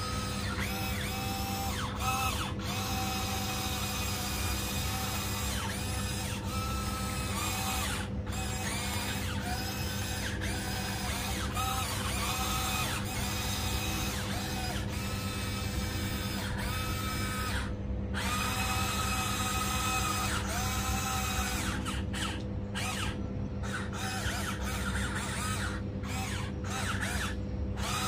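Electric motors of a Huina 1594 RC excavator whining as the boom, arm and turret are worked. The whines come in short runs of a second or two, starting and stopping, some rising in pitch as they start, over a steady low hum.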